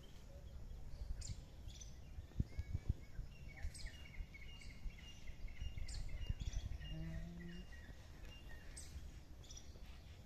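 Small birds chirping, with a run of quick repeated calls through the middle, over a steady low rumble. A few dull thumps come about two and a half seconds in, and there is a short low hum near seven seconds.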